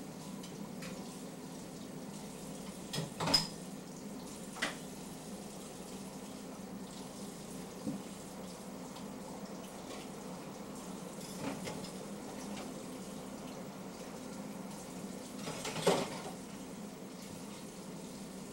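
A few sharp clinks and knocks over a steady hiss with a low hum. The loudest come about three seconds in and again near the end.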